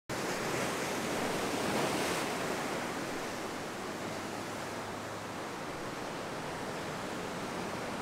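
Sea surf washing on a rocky shore: a steady rush that swells briefly about two seconds in, then settles.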